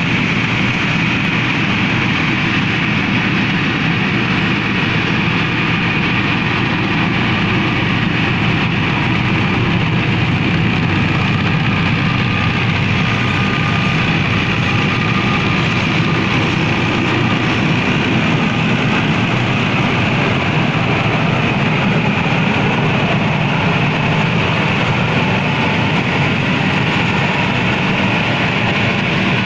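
Fiat 640 tractor's diesel engine running steadily under load, driving a wheat-straw chopper through stubble. The chopper's rotor and blower run in with it as one continuous loud machine noise.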